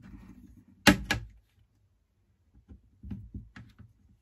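A sharp knock about a second in, quickly followed by a lighter one, then a few soft clicks and rattles: a small two-stroke diaphragm carburetor and its parts being handled and set down on a metal parts tray.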